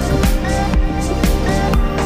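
Background music with a steady electronic beat and bass line, with short repeating melodic phrases.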